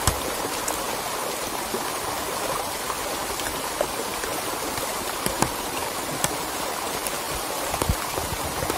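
A small, fast-flowing stream rushing steadily, with a few scattered sharp ticks.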